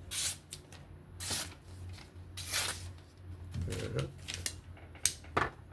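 A sheet of paper rustling in a few short swishes, as a knife's edge is tested on it, over a low steady hum.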